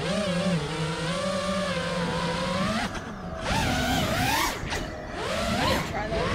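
A 4S 5-inch FPV freestyle quad's motors and propellers whining. The pitch rises and falls with the throttle: it holds steady for a couple of seconds, drops away briefly about three seconds in, then climbs sharply as the throttle is punched and dips again.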